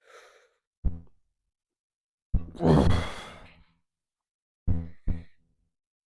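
A man's voiced breaths out and grunts of effort during a set of barbell Romanian deadlifts: a short one about a second in, a long sigh-like exhale about two and a half seconds in, then two quick short ones near the end.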